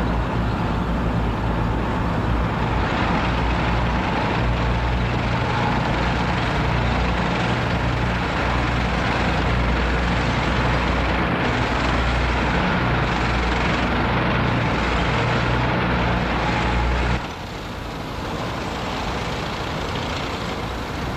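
Heavy military vehicles in a parade column driving past, their engines running in a steady low drone. About seventeen seconds in the sound drops suddenly to a quieter level.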